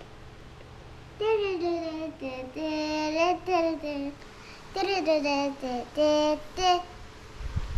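A young girl singing a short tune in two phrases with held notes, starting about a second in.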